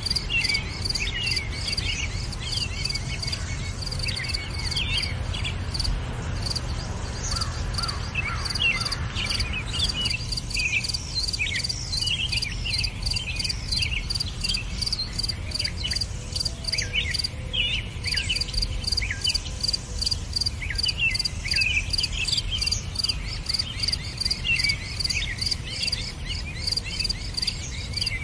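Outdoor nature ambience: a steady, pulsing insect trill like crickets, with many short bird chirps over it and a low background rumble. The trill drops out briefly twice.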